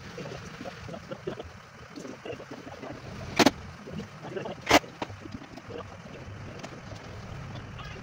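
Tools and drawer-slide hardware handled at a plywood wardrobe carcass: two sharp knocks about a second and a half apart, with small clicks, over a steady low background rumble. The cordless drill is not running.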